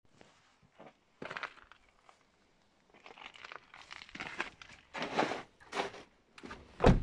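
Crunching steps on frozen snowy gravel, uneven and irregular. About seven seconds in, a car door, a Saab 9-5's, is shut with a heavy thump, the loudest sound.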